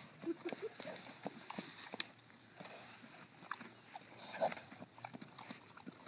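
Mini pot-bellied pigs smacking and champing their lips: a run of irregular wet clicks and smacks. The owner reads it as the pigs challenging each other without aggression.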